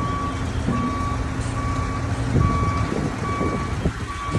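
Vehicle reversing alarm beeping steadily, a little more than once a second, over the low rumble of a running diesel-type engine.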